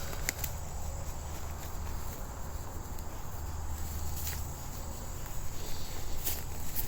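Footsteps through dry leaves and twigs on a slope, with a few sharp snaps, over a steady high-pitched insect chorus.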